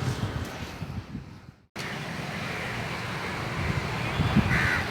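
Steady outdoor noise with wind on the microphone, which drops out briefly about one and a half seconds in and then resumes. A crow caws near the end.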